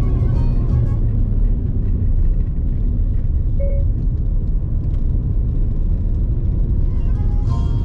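Volkswagen Golf 7.5 on the move, a steady low rumble of engine and road noise. Folk music over it stops about a second in and comes back near the end.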